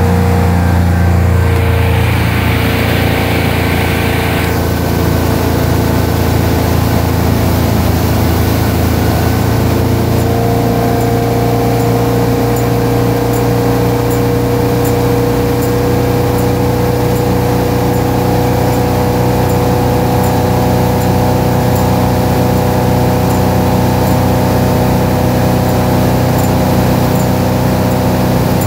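Motorboat engine running steadily at planing speed, with the rush of the churning wake. The engine note shifts slightly about ten seconds in.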